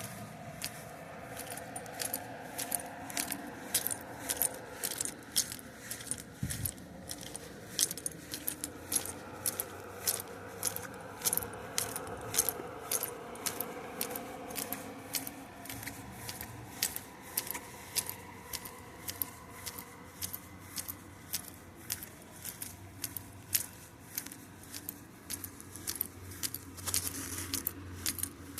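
A long run of sharp, slightly irregular clicks, about two to three a second, over a steady low hum.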